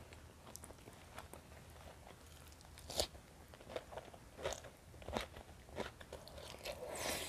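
Close-miked eating sounds of a person chewing a mouthful of rice, fried fish and sambal: soft chewing with scattered crisp crunches, the loudest about three seconds in, and a brief breathy hiss near the end.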